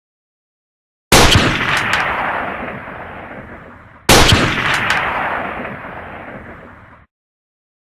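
Two gunshot sound effects about three seconds apart, each a sharp crack followed by a long echoing tail that dies away over about three seconds.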